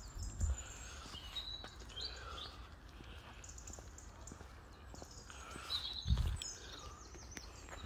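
Birds chirping and calling in short, repeated calls over a faint low outdoor rumble. Two brief low thuds break in, one just after the start and a louder one about six seconds in.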